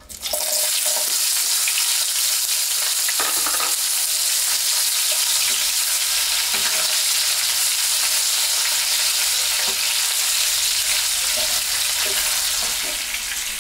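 Chopped onion and green pepper tipped into hot oil in a frying pan, setting off a loud, steady sizzle right at the start. A spatula scrapes and knocks against the pan a few times.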